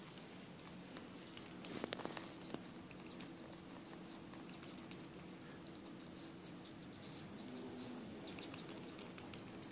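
Squirrel nibbling an apple slice held in its paws: faint, rapid crunching ticks, with a short burst of louder ones about two seconds in.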